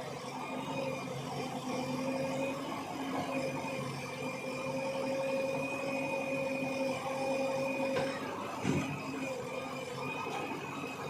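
A diesel engine of heavy machinery, running steadily with a constant whine. There is a sharp click about eight seconds in and a brief thump shortly after.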